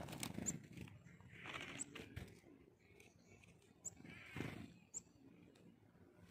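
Slowed-down wing and feather sounds of a chickadee as it flutters onto a hand and settles, lowered in pitch into deep breathy whooshes. They come in separate bursts: one at the start, one about a second and a half in, and a stronger one just past four seconds. A few brief high squeaks come in between.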